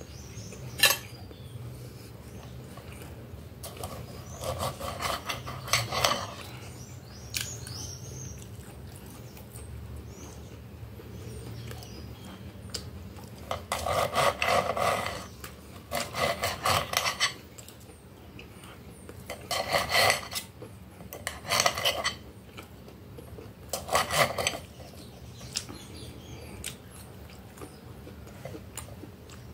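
Knife and fork cutting grilled beef on a glass plate, the blade scraping and clinking against the glass in several spells of quick back-and-forth strokes. A sharp knock of cutlery on the plate comes about a second in.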